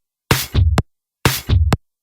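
Electronic music: a short chopped loop of a drum hit and a bass part, repeating about once a second with dead silence between repeats.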